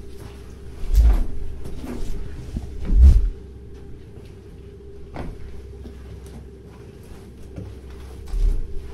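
Footsteps on a debris-strewn floor, with scattered clicks and crunches and two dull thumps about one and three seconds in.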